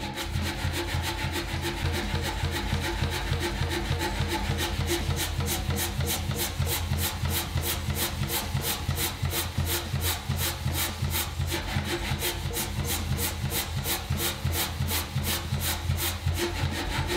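A Beché power hammer running with its motor humming steadily while the ram makes rapid, even, light strokes, about three a second. The upper die is barely touching a matchbox on the lower die and slowly pushes it closed: a test of fine control over the blow.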